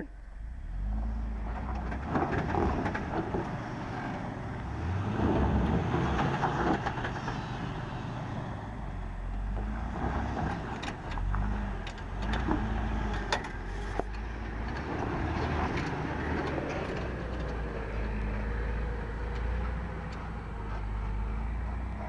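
Jeep Wrangler's engine working under throttle as it crawls up and over a rocky trail ledge, the engine note rising and easing as the driver feeds in throttle. A few sharp knocks come around the middle, as the tyres and chassis come down on the rock.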